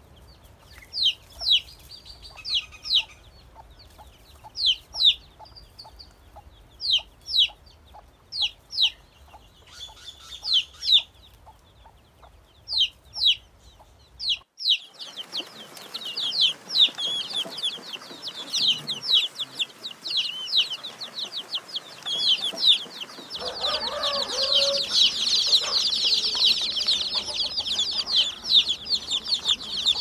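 Domestic chicks peeping: at first single, high-pitched, falling peeps about a second apart; then, after a sudden change about halfway, many chicks peeping at once, thickening into a dense, continuous chorus from a crowded flock of chicks near the end.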